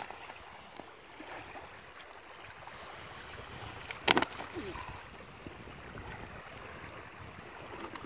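Light wind and small waves lapping on a sandy shore, with one sudden loud thump about four seconds in.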